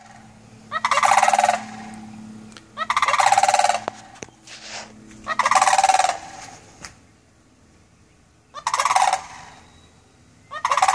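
Turkeys gobbling: five loud, rapid rattling gobbles a couple of seconds apart, with a fainter call between the second and third.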